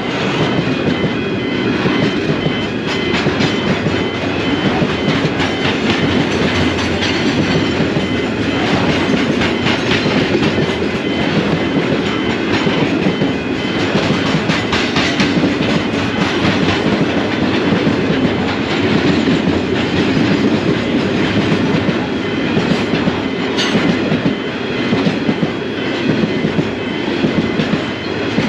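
Goods train of flat wagons loaded with steel coils rolling past close by: a steady, loud run of wheel noise with wheels clicking over the rail joints.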